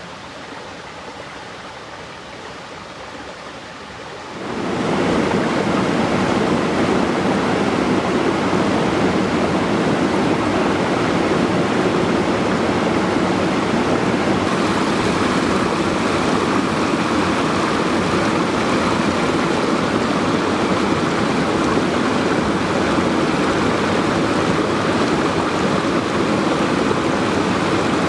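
Small forest stream running over mossy rocks: a steady rushing wash of water, which gets much louder about four seconds in and stays loud.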